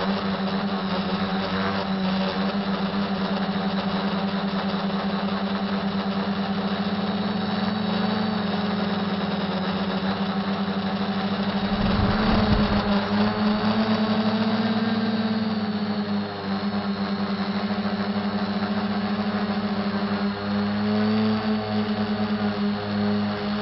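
SK450 dead-cat quadcopter's motors and propellers humming steadily, heard from the onboard camera, the pitch wavering slightly as the throttle changes. A short rough burst of noise about halfway through.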